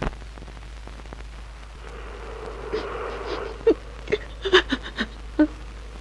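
A woman sobbing in short, catching bursts, a string of them coming quickly in the second half after a quiet stretch.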